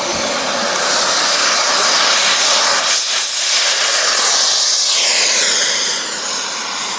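Radio-controlled model jet's engine at full power on its takeoff roll: a loud rushing roar with a thin high whine, which swells as the jet passes and drops away about six seconds in.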